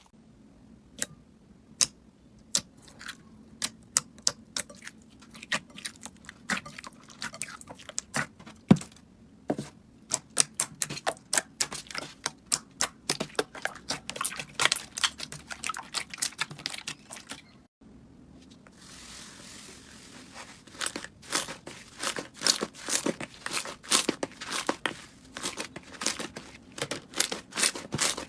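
Slime being squeezed and worked by hand, giving a rapid, uneven stream of sharp pops and crackles. A brief break comes about two-thirds of the way through, followed by a soft hiss, then the popping picks up again.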